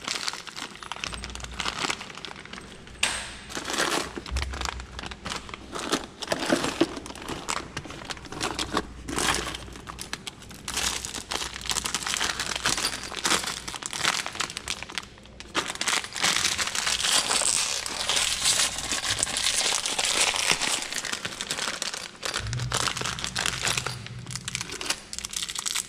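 Clear plastic bag crinkling and rustling as hands rummage through the loose screws and bolts inside it, searching for matching pieces.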